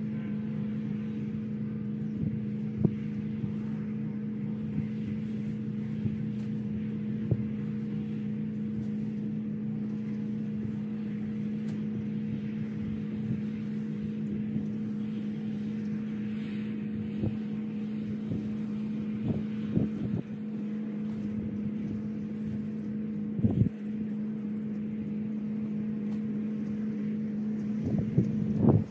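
A vehicle engine idling steadily at an even pitch, with a few separate thumps over it.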